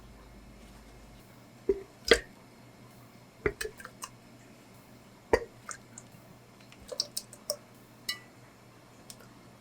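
Scattered light knocks and clicks of kitchen items being handled, about a dozen irregular taps over several seconds, the loudest about two seconds in and again near the middle.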